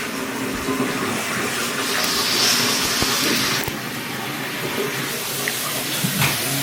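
Water running from a tap into a sink, a steady rush that grows brighter and stronger for a second or two about two seconds in.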